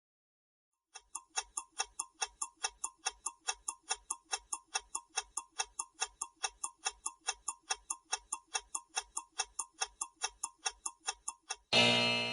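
Quiz countdown-timer sound effect: a clock ticking steadily, about four ticks a second, for about ten seconds. It ends near the end in a loud time's-up tone that fades.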